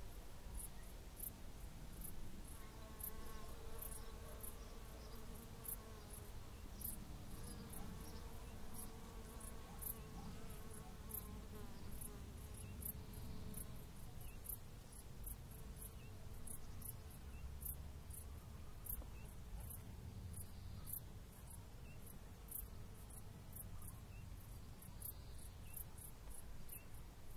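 Garden ambience: low wind rumble with faint, short high-pitched ticks or chirps repeating about twice a second.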